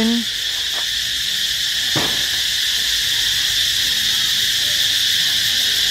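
A steady, high-pitched insect chorus, with a single faint knock about two seconds in.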